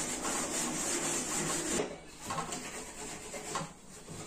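Hand scrubbing the dirty surfaces of a kitchen chimney hood, a scratchy rubbing that runs strongly for about two seconds, pauses briefly, then goes on in uneven strokes before easing off near the end.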